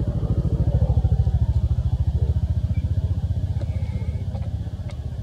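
A small engine running with a steady, fast low throb. It grows a little louder about a second in and eases off toward the end.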